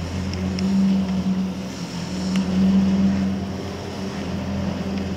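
Delta 3D printer running while it extrudes geopolymer paste: a steady motor hum that swells and dips in level, with a few faint clicks.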